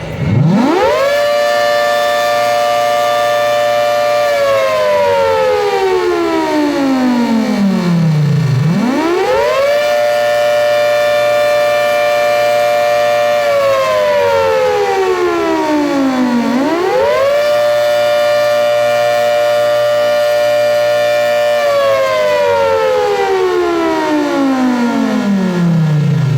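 Custom 10/12 Hurricane outdoor warning siren sounding the attack (wail) signal: it winds up, holds a two-note chord for a few seconds, then winds slowly down, three times over. Its rotator has failed, so the siren stays pointed one way and its loudness holds steady instead of sweeping up and down.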